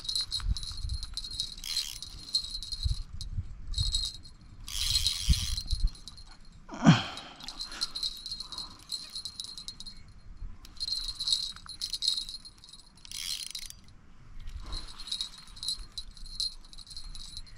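Spinning reel's drag clicking in bursts as a hooked shark catfish runs and pulls line off against it. About seven seconds in, a single loud short sound falls steeply in pitch.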